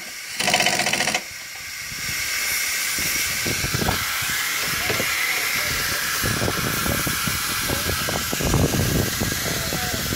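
Compressed air hissing steadily from the semi truck's disconnected air-suspension line, setting in about two seconds in, with light knocks and clanks of tools against the frame.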